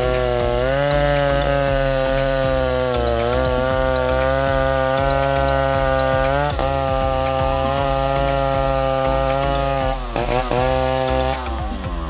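Two-stroke chainsaw running at high revs while cutting into a durian trunk, its pitch sagging and recovering as the chain bites into the wood. Near the end it bogs sharply once, then the revs fall away.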